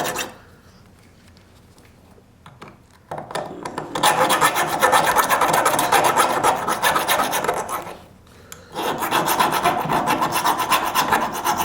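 Hand file of a Leatherman multi-tool rasping back and forth across the steel cutting edge of an ice auger blade, sharpening out nicks and burrs. The filing stops for the first three seconds or so and again briefly near 8 seconds.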